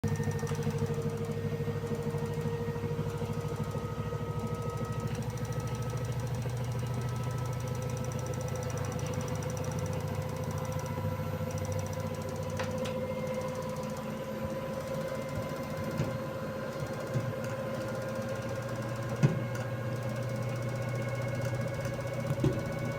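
LG F1220WDR washing machine in its spin cycle, knocking rapidly as the drum turns, over a motor whine that rises slowly in pitch. A few louder single knocks come in the second half.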